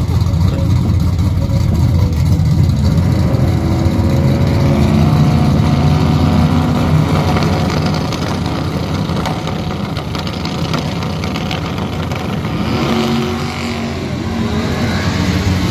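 Pickup truck engine running loud while staged at a drag-strip starting line, with a brief rise in revs near the end.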